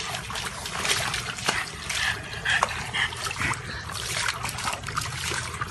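Water sloshing and splashing in a plastic tub as a dog moves about in it, spilling over the rim onto concrete, with a few short dog whimpers in the middle.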